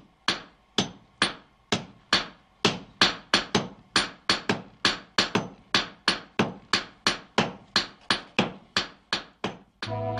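Hammer blows on a glowing steel billet on an anvil during the forging of a Japanese sword, with the billet folded over for forge-welding. The strikes come in a steady, rapid train of about three a second, each with a short ring. They stop just before the end.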